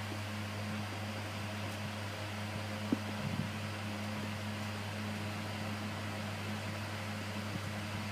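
Steady low electrical hum with an even hiss, and a faint click about three seconds in.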